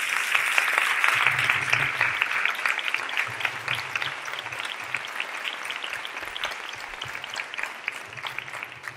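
Audience applauding, strongest at the start and dying away gradually.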